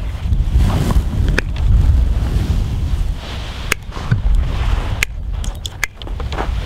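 Wind buffeting the microphone, with several sharp snips of hand pruning shears cutting off small shoots from an apple branch.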